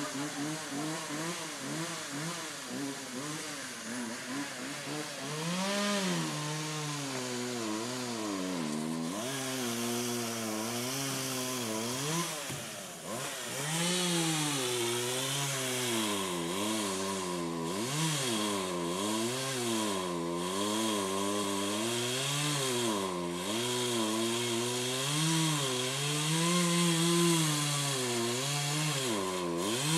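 Chainsaw running while cutting into a big tree trunk, its engine pitch dropping under load and rising again over and over as the saw works through the cut.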